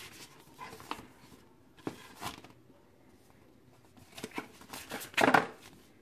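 Paper rustling from a folded paper installation guide being handled and put aside, in scattered short rustles with the loudest burst near the end.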